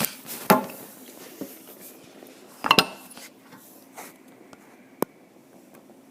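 A few clattering knocks and rustles from handling takeout food containers and dishes: one loud knock about half a second in, a quick double clatter near the middle, and a sharp click near the end.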